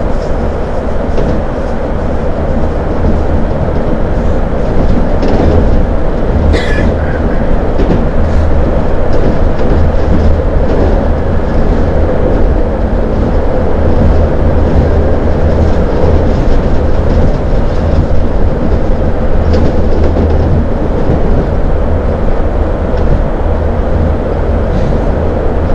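CPTM 2100-series electric multiple unit running at speed, heard from inside the carriage: a steady loud rumble with wheel-on-rail noise, and a brief high squeal about six and a half seconds in.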